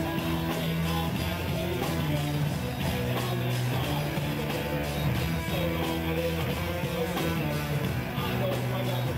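Live rock band playing at full volume: electric guitar and drums, with vocals over the top.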